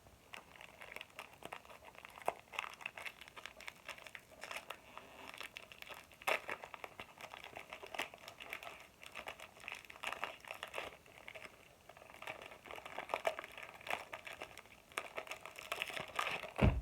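Wrapper of a trading-card booster pack crinkling as it is handled and torn open: continuous crackling with a few louder snaps.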